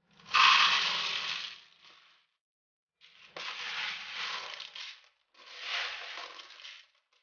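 Dry elbow macaroni and black-eyed beans pouring and rattling out of a tipped plastic toy dump truck into another. The loudest burst comes first, and two softer bursts of pasta and beans shifting follow.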